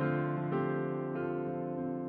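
Slow keyboard music with a piano sound: held chords that fade gently, with new notes coming in about half a second in and again just after a second.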